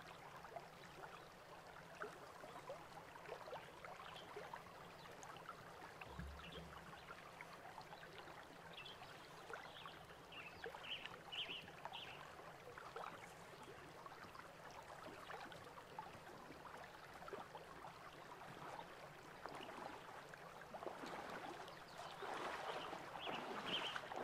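Shallow Gila River flowing over rocks, a faint steady babble and trickle of water that grows a little louder near the end.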